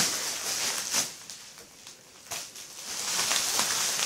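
Plastic bubble wrap rustling and crinkling as hands pull and handle it, louder in the first second and again near the end, with a few sharp crackles.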